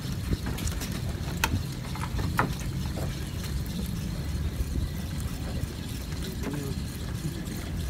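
Wind buffeting the microphone as a steady low rumble, with a couple of sharp clicks in the first few seconds.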